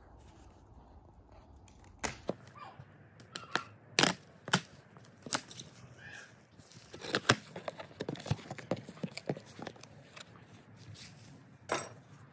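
Cardboard box being opened with a knife: packing tape slit and torn, and stiff cardboard flaps pulled apart, making a run of sharp, irregular cracks, rips and scrapes from about two seconds in.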